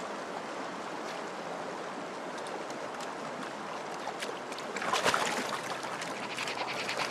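Steady rushing noise like running water, with a louder swell about five seconds in. A quick, regular tapping starts near the end.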